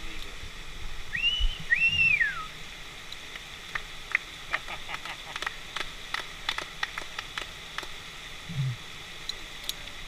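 Steady rush of the waterfall. About a second in, a two-part whistle rises, holds, then falls away. Through the second half come many small sharp clicks and clinks of the rappel harness hardware being handled.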